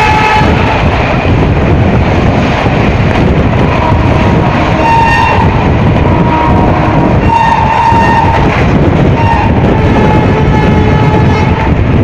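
Express train coaches running at speed, a loud steady rumble and clatter of wheels on rail heard from inside the coach at an open window. The WAP-5 electric locomotive's horn sounds in short blasts: one ends about half a second in, and more come from about five seconds in to near the end.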